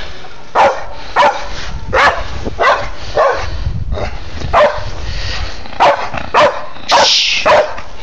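Pit bulls barking, about ten short barks at uneven intervals. A brief rush of noise comes about seven seconds in.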